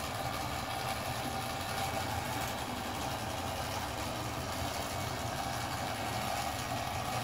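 Electric drive motors and 3D-printed gear train of a radio-control model destroyer running steadily at cruising throttle: an even mechanical whir with a little bit of a grinding from the printed gears.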